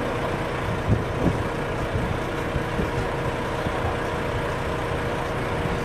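Steady engine hum and road rumble of a large vehicle, with a couple of light knocks about a second in.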